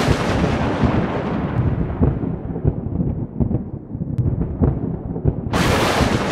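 Thunder: a rumble that fades away over a few seconds, then a second sharp thunderclap about five and a half seconds in.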